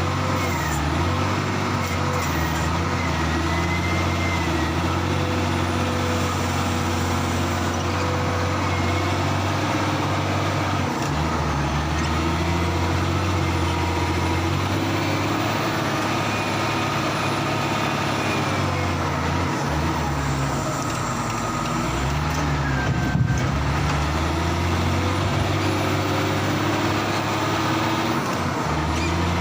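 Heavy diesel machinery running steadily, the engine note shifting in load and pitch several times as it works. A single sharp knock about 23 seconds in.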